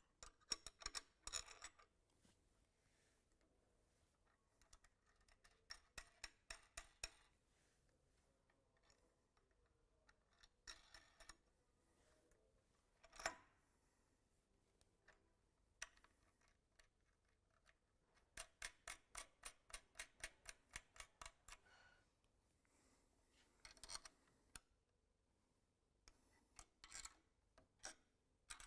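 Ratchet wrench clicking in short runs of quick, evenly spaced ticks, with a few single metal knocks, as the positioner's mounting bolts are worked on the valve actuator.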